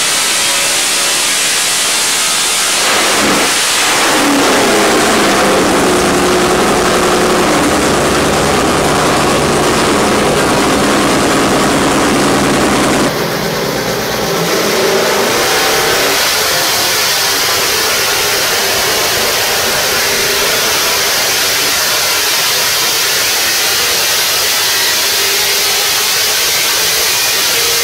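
358 cubic inch small-block Chevrolet race engine running loudly on the dyno, with a sudden change in its sound about halfway through.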